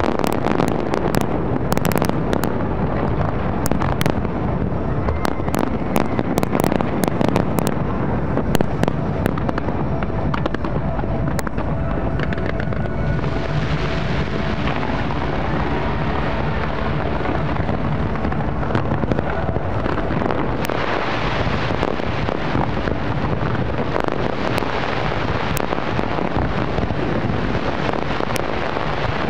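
Large professional fireworks display: many sharp bangs of shells bursting over the first nine seconds or so, then from about thirteen seconds in a dense, steady rush of crackling noise as the barrage keeps going.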